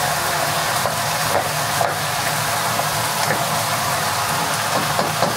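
Pork, onions and carrots frying in a pot: a steady sizzle with a few faint clicks.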